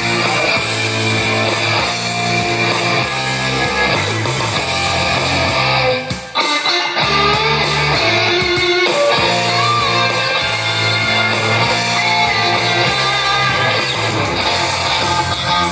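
Rock song with electric guitar played through the Infinity ONE portable Bluetooth speaker as a listening demo. The song thins out briefly about six seconds in.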